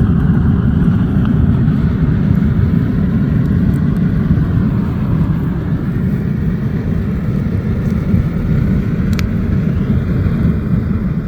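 Steady low roar of a homemade coal furnace with a ventilator blowing air into the fire, with an occasional sharp crackle.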